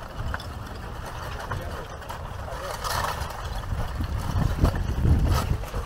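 Front of an advancing block-lava flow crackling, with a few sharp clinks of loose rock scattered through, over gusts of wind on the microphone.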